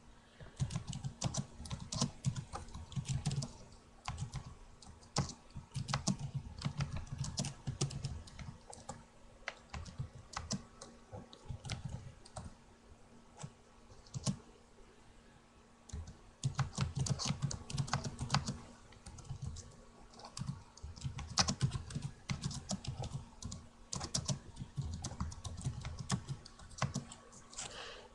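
Typing on a computer keyboard, with rapid key clicks in runs of several seconds and brief pauses between them, over a steady low hum.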